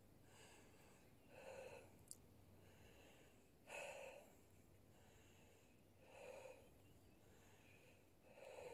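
Faint, slow breathing close to the microphone, one soft breath roughly every two and a half seconds, with a single faint click about two seconds in.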